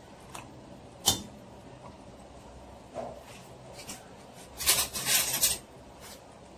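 Kitchen utensil handling off to the side of a stovetop pot: one sharp knock about a second in, then a short run of clattering knocks around five seconds in.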